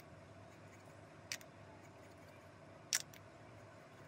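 Two faint, sharp clicks, about a second in and again near three seconds, as a small glass bottle of decal adhesive and its plastic brush-cap are handled, over quiet room tone.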